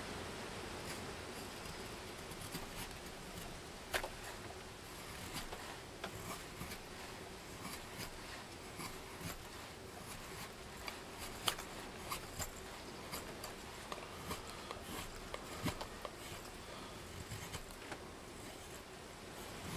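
Schrade Frontier SCHF42D knife shaving curls off a dry softwood spatula blank: a run of short, irregular scraping cuts with a few sharper snaps, over a steady background hiss.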